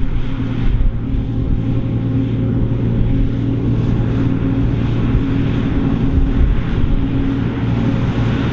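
Krone BiG X 700 self-propelled forage harvester running hard and steady under load, a loud, even low engine drone.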